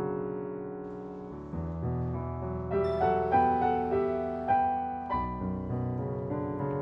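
Background piano music: a slow melody of single notes over low chords, each note struck and left to fade.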